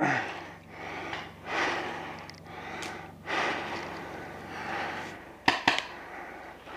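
Heavy, panting breaths of a paintball player on the move, in noisy swells about one to two seconds apart. Near the end come two sharp pops close together, paintball markers firing.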